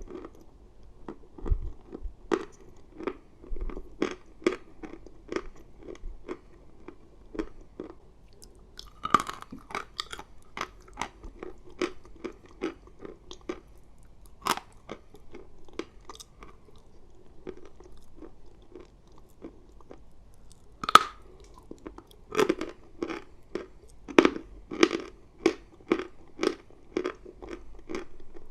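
Someone chewing dry edible chalk, a steady run of crunching chews. There are louder, sharper crunches of fresh bites about nine seconds in and again about twenty-one seconds in.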